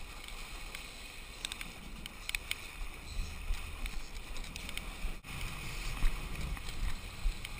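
Low steady rumble of a fishing boat and wind buffeting a head-mounted GoPro Hero HD's microphone, with scattered light ticks and a brief dropout about five seconds in.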